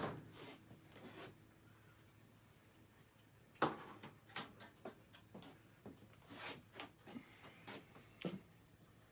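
Tools being handled at a workbench: a scatter of short metallic clicks and knocks, the loudest a little over three and a half seconds in, over a low steady hum.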